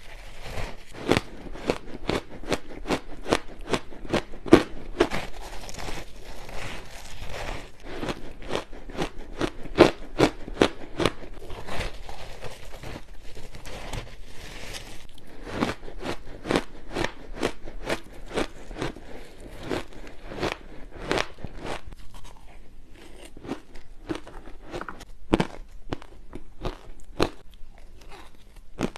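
Close-up crunching of frozen matcha ice being bitten and chewed, many sharp crunches a second in an irregular run.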